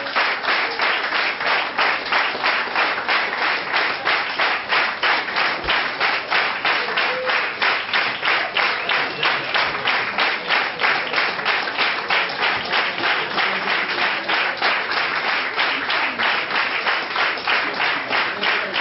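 Concert audience applauding in rhythmic unison, clapping together at a steady beat of about three claps a second.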